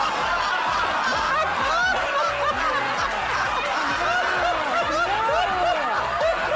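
Several people laughing hard together, their high laughs rising and falling over one another.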